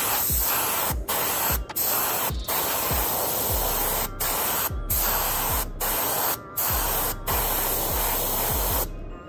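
Airbrush spraying paint in a steady hiss, broken again and again by short breaks where the spray stops for a moment.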